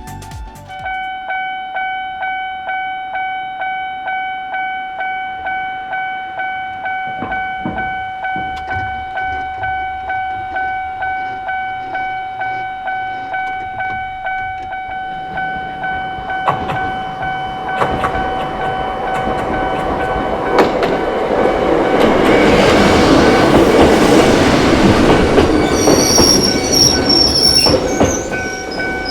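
Japanese level-crossing warning bell starts ringing just after the start, a steady electronic ding about twice a second that goes on throughout. From about sixteen seconds in a Choshi Electric Railway train approaches and runs over the crossing, loudest a few seconds past twenty, with a high squeal from the wheels near the end.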